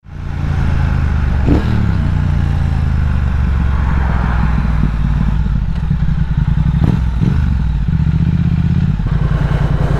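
Motorcycle engine running at low speed as the bike slows and rolls in, its note dropping in pitch about a second and a half in, with a couple of brief changes in pitch later on.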